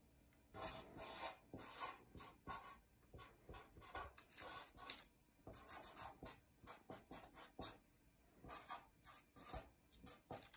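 Black felt-tip permanent marker writing capital letters on lined paper: a faint, quick, irregular run of short scratchy pen strokes.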